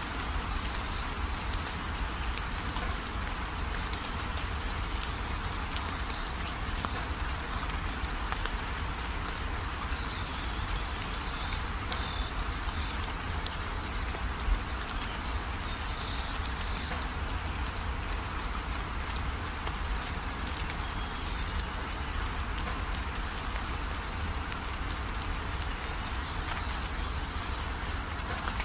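Steady background hiss with faint, wavering high chirps running through it, and one brief click about halfway.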